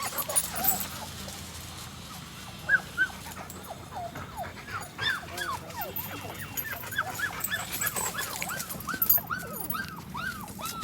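Puppies whimpering and yelping in short high cries, sparse at first, then coming thick and fast, several a second, from about four seconds in.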